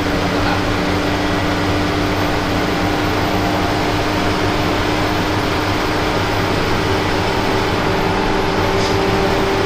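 Steady engine drone and road noise of a moving bus, an even rumble with a constant low hum.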